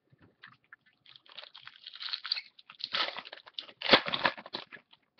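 Foil trading-card pack wrapper being crinkled and torn open, a dense crackling rustle that grows loudest about four seconds in.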